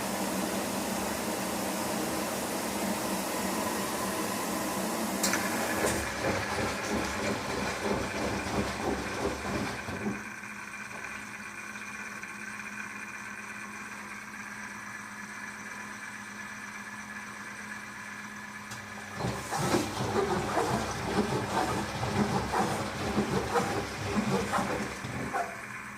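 Izola Apollo 636W washing machine at the start of its wash cycle. A steady rushing hiss stops about five seconds in. Then the drum turns twice in spells of several seconds, with water and wet clothes sloshing inside, and a quiet steady hum during the pauses between.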